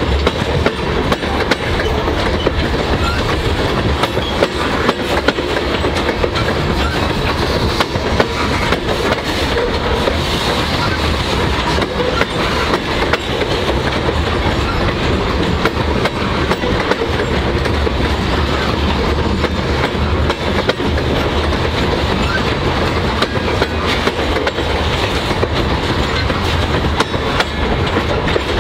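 Loaded covered hopper cars of a grain train rolling past close by: a steady rumble of steel wheels on rail, with a rapid clickety-clack of wheels clicking over the rail.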